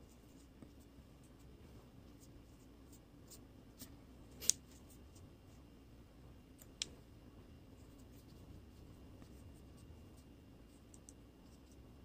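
Faint scratching of an ink brush being worked over rice paper, with scattered light ticks. A sharp click comes about four and a half seconds in and a smaller one near seven seconds.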